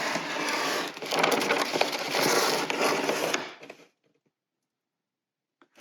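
Dense crackling and crunching of paper and dry wood being handled at a fireplace, full of small sharp cracks; it cuts off abruptly about two-thirds of the way through.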